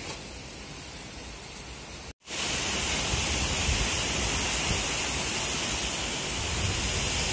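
A steady, even hiss of noise. About two seconds in it cuts out for a moment and comes back louder and brighter.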